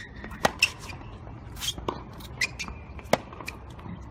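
Tennis ball strikes and bounces on a hard court: about half a dozen sharp, irregular knocks, the loudest a little after three seconds in.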